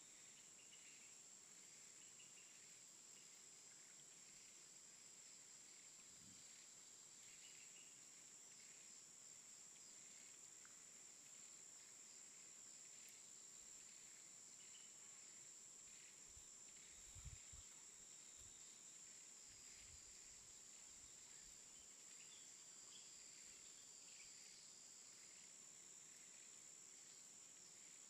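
Near silence: faint snowy-forest ambience with a steady high-pitched whine, scattered faint chirps, and a few soft low thumps of light wind on the microphone a little past the middle.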